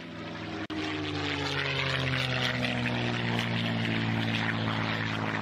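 Piston-engined propeller aircraft engine running in a steady drone, its pitch sinking slowly, with a very brief break under a second in.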